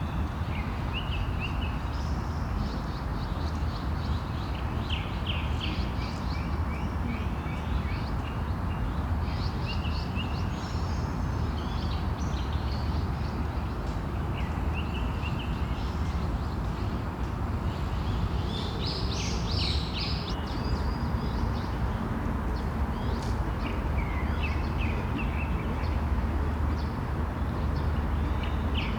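Several birds chirping and calling in short, quick phrases over a steady low background rumble.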